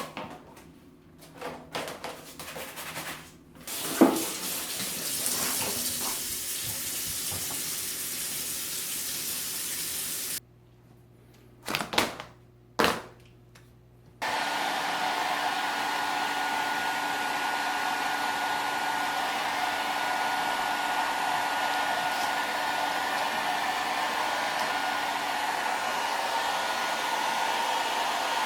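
An electric blower running with a steady rush of air and a whine. It stops about ten seconds in; after a few clicks it starts again and keeps running.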